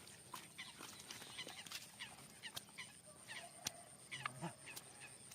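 Faint, scattered short chirping calls of small animals, many quick notes each falling in pitch, over a steady high-pitched whine.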